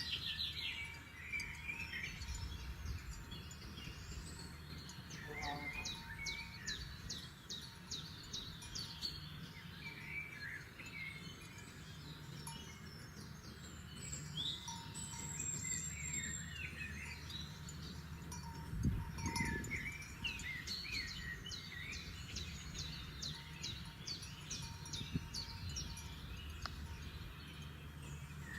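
Several forest songbirds singing at once, overlapping chirps and whistled phrases with quick trills, over a steady low background rumble.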